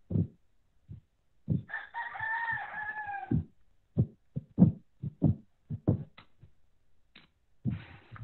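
A rooster crowing once, one long call lasting under two seconds, with a scatter of short soft knocks before and after it.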